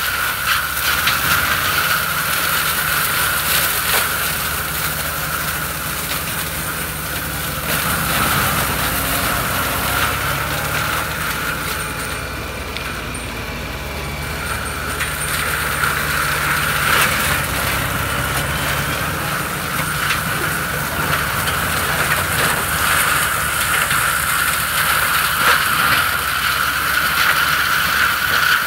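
FAE forestry mulcher on a Fendt 936 tractor shredding brush: the tractor's diesel engine working under load with the mulcher running, a steady high whine over it and scattered sharp cracks. The whine dips for a few seconds about halfway through, then comes back.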